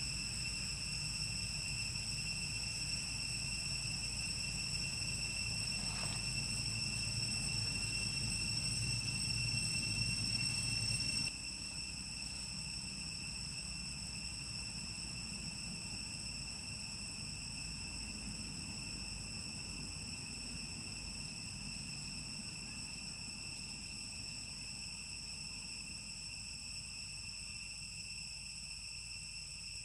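Steady high-pitched insect chorus, a continuous ringing drone over a low background rumble; it drops abruptly in level about eleven seconds in.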